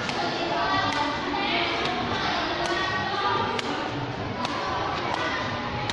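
Takraw ball being kicked up repeatedly in juggling practice: a sharp tap about once a second, steady in rhythm. Children's voices chatter throughout.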